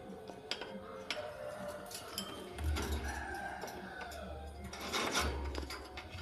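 Lovebirds pecking at corn kernels: a scattered run of small sharp beak clicks and taps, with a few short faint chirps.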